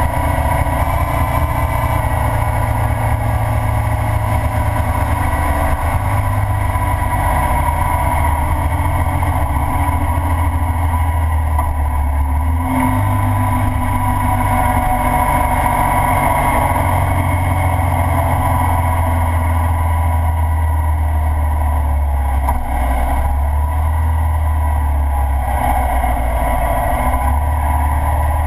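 Ural sidecar motorcycle's flat-twin engine running at road speed, its note shifting a few times, with wind rushing over the rig.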